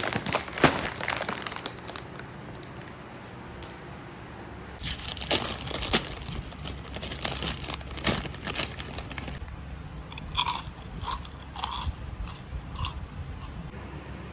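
Plastic snack-chip bags crinkling as they are handled and opened. There is a dense run of crinkling about five to nine seconds in and scattered crackles after it.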